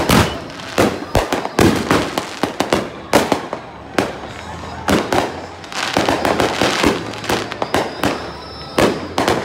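Consumer aerial fireworks going off all around: a rapid, irregular run of bangs and crackles, several a second, with the loudest bang about three seconds in.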